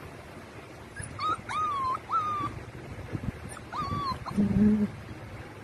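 Siberian husky puppies whimpering: four high-pitched whines, each rising and then held, between about one and four seconds in, followed near the end by a louder, lower-pitched call.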